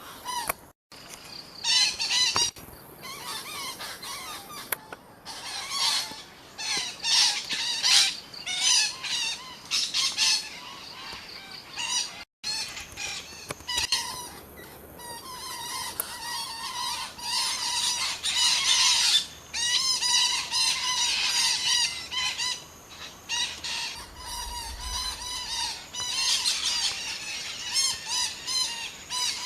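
A flock of wild betet parakeets squawking, with many harsh, repeated calls overlapping throughout. The sound cuts out briefly near the start and again about twelve seconds in.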